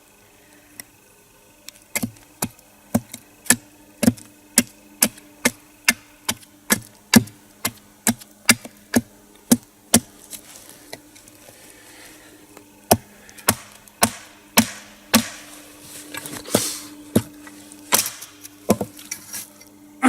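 Repeated sharp blows driving wooden wedges into a log's crack to split it lengthwise, about two strikes a second, pausing briefly in the middle before a second run of blows. A faint steady hum lies underneath.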